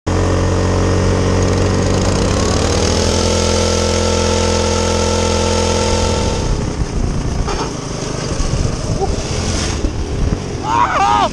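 Go-kart engine running hard at speed; its pitch climbs about two seconds in and then holds steady. After about six seconds the sound turns rougher and uneven.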